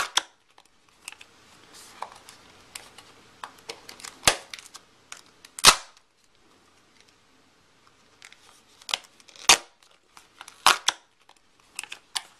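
Small white cardboard product box handled and opened by hand, its clear plastic seal strip pulled off: a scattering of sharp clicks and snaps of card and plastic, with a quiet gap of about two seconds in the middle.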